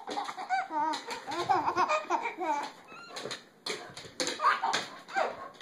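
Five-month-old baby giggling and laughing in repeated wavering bursts, with a few sharp clicks between them.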